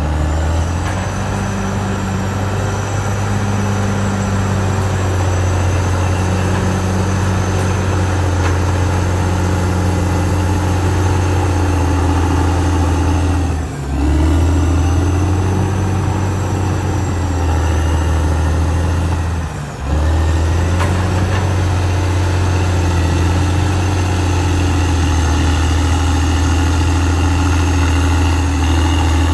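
Caterpillar D6R XL bulldozer's diesel engine running steadily, a deep drone with a thin high whine above it. The sound drops off briefly twice, about halfway through and again about two-thirds through.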